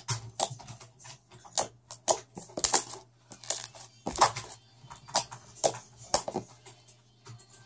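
Hands squeezing and pressing a fluffy glue slime, giving irregular sticky clicks and pops, one or two a second.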